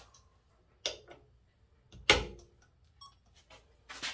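Sharp metallic clicks and knocks from a torque wrench and its test rig being handled, the loudest about two seconds in with a short ring. A brief electronic beep sounds about three seconds in.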